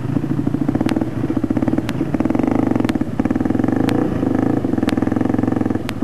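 Dirt bike engine running at low revs with a fast pulsing beat as the bike is ridden over a rocky trail, the throttle easing off and picking up again several times.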